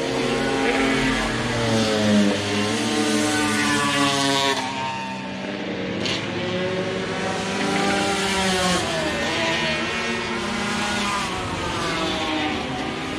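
Several classic racing motorcycles on the circuit, their engines revving up and down as they accelerate past one after another, with overlapping engine notes rising in pitch and then dropping off.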